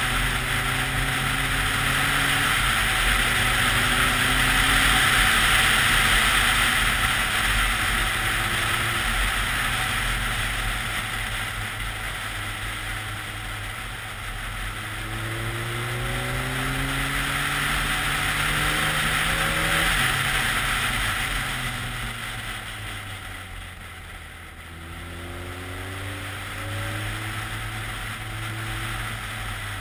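Wind rushing past a helmet-mounted camera over the inline-four engine of a BMW K1300S at speed. The engine pitch climbs in stretches and drops back at each gear change, and the whole sound eases off a little past the middle as the bike slows for a bend, then builds again.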